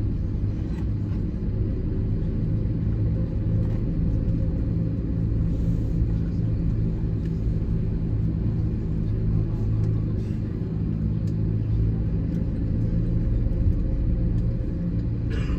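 Steady low rumble and hum inside an Airbus A320neo cabin, with a few faint clicks.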